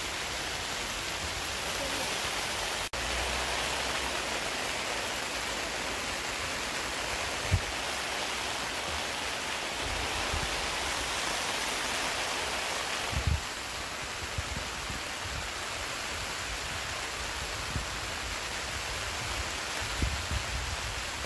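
Heavy rain falling, a steady even hiss, with a few brief low thumps.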